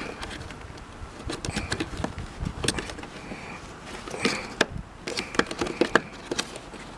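Irregular plastic clicks and knocks of hands working a burnt-out bulb and its socket free of a car's tail-light housing.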